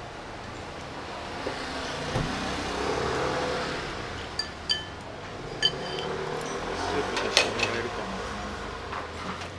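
A motor vehicle passes on the street, its noise swelling and fading over the first few seconds. A spoon clinks against a ceramic soup bowl several times, short ringing taps, a few more near the end.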